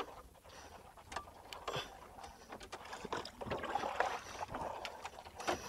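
Wet gill net being hauled by hand into a small plastic boat: water splashing and dripping off the mesh, with scattered light clicks and knocks.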